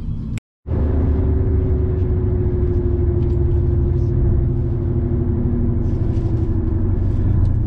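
Steady road and engine rumble heard from inside a moving vehicle, with a faint hum that slowly falls in pitch. The sound cuts out briefly about half a second in.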